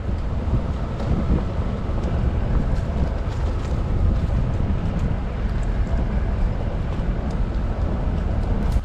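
Vehicle driving along a dirt track, a steady low rumble of engine and tyres, with wind buffeting the microphone held out the side window.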